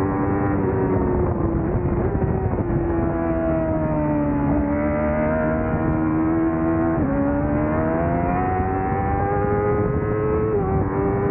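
Honda CBR1000RR-R Fireblade's inline-four engine heard from on the bike at speed. Its note falls in pitch over the first few seconds, jumps in sudden steps a few times, then climbs steadily again in the second half.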